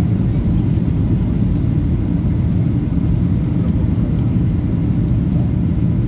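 Steady low rumble of an airliner's engines and rushing air, heard from inside the passenger cabin during the descent to land.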